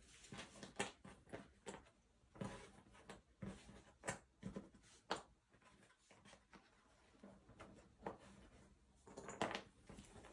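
Faint, scattered light clicks and taps of cardboard jigsaw puzzle pieces being handled and set down, a dozen or so irregular ticks with quiet gaps between them.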